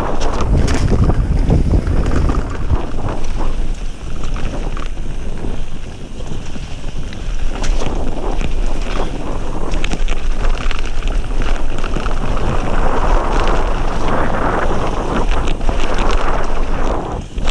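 A mountain bike descending fast on a wet gravel trail: tyres rushing over the dirt and the bike clattering over stones and roots in many short knocks, under heavy wind buffeting on the camera microphone.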